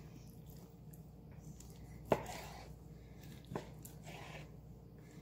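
Sharp knife slicing through raw chicken breast on a wooden cutting board, the blade knocking on the board: a sharp knock about two seconds in and a softer one about a second and a half later.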